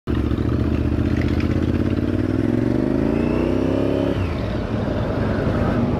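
Sport bike engine pulling under throttle, its pitch rising steadily for about four seconds, then falling away suddenly as the revs drop.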